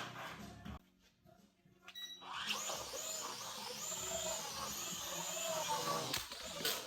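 Snaptain S5C mini quadcopter's motors and propellers whirring, starting about two and a half seconds in after a short tone, with the pitch wavering up and down as the motor speeds change.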